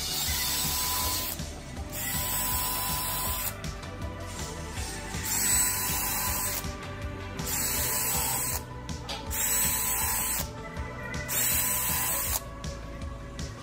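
Brushless cordless drill boring holes through UHMW plastic in short runs: six bursts of high motor whine, each spinning up quickly and lasting about a second, with brief pauses between holes.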